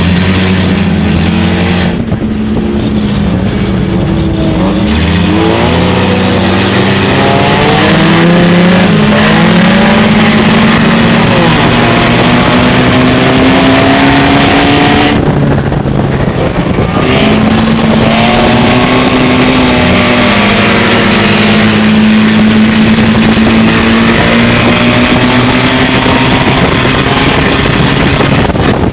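Dirt-track Stinger race car with an automatic transmission heard from inside its cabin, its engine running hard under load. The engine note climbs slowly for about fifteen seconds, drops back briefly, then climbs again, over steady road and wind noise.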